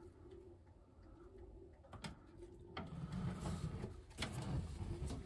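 Racing pigeons cooing, faint at first and louder from about three seconds in, with a couple of short sharp knocks.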